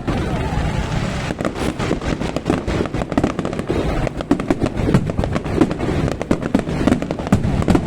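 Dense barrage of bottle rockets and firecrackers going off: a rapid, irregular crackle of many sharp bangs a second.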